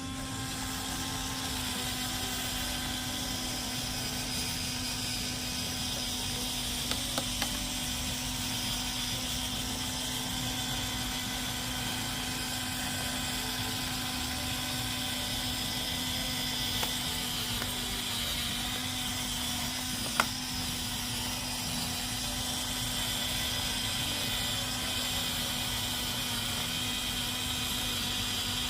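A small electric motor runs at a steady speed, with a constant hum and hiss, the kind of sound a handheld cleaning tool makes. A few short clicks come about seven seconds in, and one sharp click comes about twenty seconds in.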